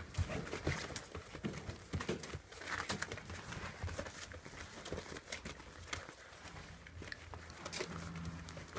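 Rough collie puppies moving about: irregular light taps and scuffs of paws and claws on the floor.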